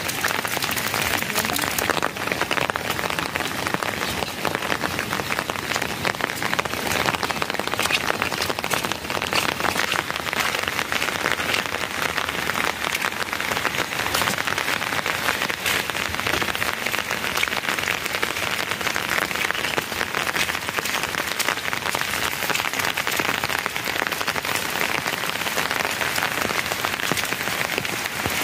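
Steady rain: a dense, even hiss of many small drop impacts that keeps up without change.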